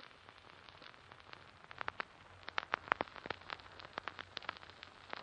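Faint irregular crackling: scattered clicks and pops over a low hiss, a little denser in the second half.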